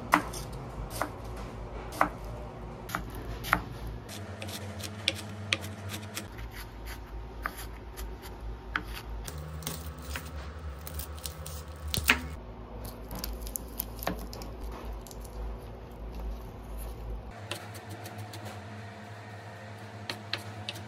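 Chef's knife chopping red onion and then garlic cloves on a bamboo cutting board: irregular sharp knocks of the blade on the wood, with softer slicing sounds between them.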